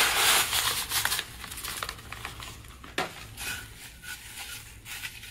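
Dry stuffing crumbs poured from a cardboard box into a plastic-lined slow cooker crock make a loud rush for about the first second. After that comes softer rustling and crinkling of the plastic liner as a hand spreads the crumbs, with one sharp click about three seconds in.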